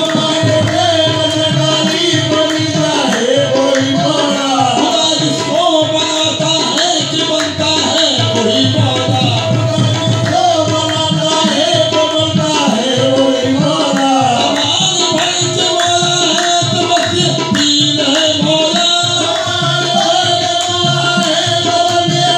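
Qawwali music: a tabla rhythm under a continuous, ornamented melody line.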